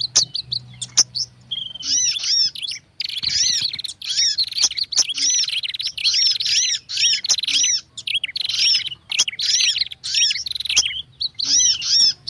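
Bird-lure recording mixing the agitated calls of prinias (prenjak), sogon and sunbirds (kolibri). It is a dense stream of sharp, arched chirps repeated in pairs and quick runs, broken by buzzy rattling trills.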